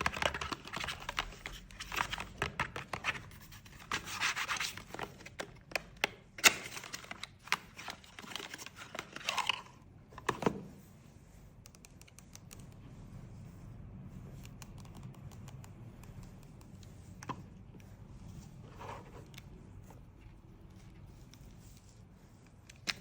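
Cosmetic packaging being opened and handled by hand: tearing, crinkling and scraping with sharp taps and clicks. The handling is busy for about the first ten seconds, then it is mostly quiet with a few single clicks.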